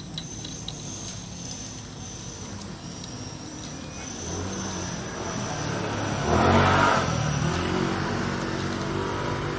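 A motor vehicle's engine running close by, building from about four seconds in to a brief loud swell a little over six seconds in, as if driving past. Light metallic clicks of small engine parts being handled near the start.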